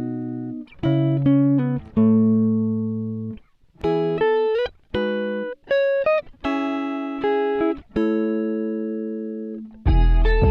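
Background music: plucked guitar notes and chords, each ringing out and fading, in an unhurried melody. Near the end a fuller, louder passage with bass comes in.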